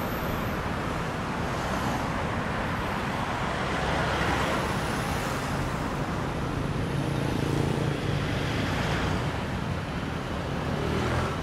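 Busy city road traffic: a steady wash of cars and other vehicles that swells as vehicles pass. A heavier engine's low hum comes through a little past the middle.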